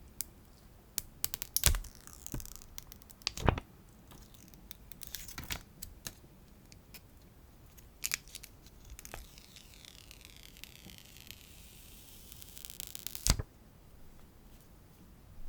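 Hands unboxing an iPhone SE (2020): sharp clicks and taps of the box and parts being handled, with a few seconds of tearing and crinkling of plastic packaging that ends in a sharp snap near the end.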